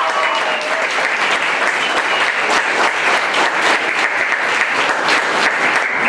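Audience and cast applauding: many hands clapping in a dense, steady patter.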